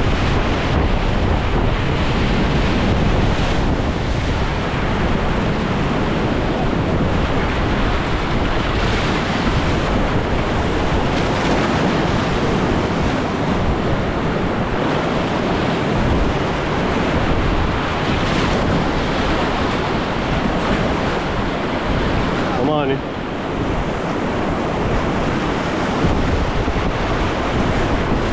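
Whitewater rapids rushing steadily around a kayak, with water and wind buffeting the camera's microphone.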